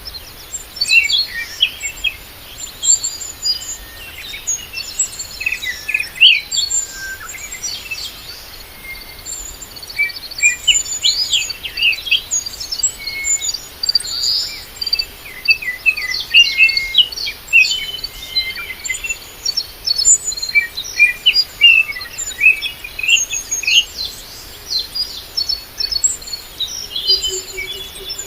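Birds chirping, many short, quick calls overlapping one another, with a high thin note repeated over and over.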